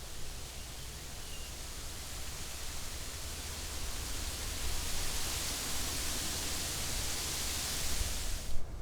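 Outdoor forest ambience: a rushing hiss that swells over several seconds above a steady low rumble, then cuts off suddenly near the end.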